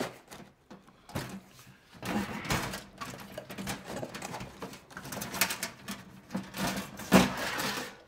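Sheet-metal cover of a Vevor portable diesel heater being worked loose and lifted off its base: irregular metallic clicks, scrapes and rattles, loudest about seven seconds in.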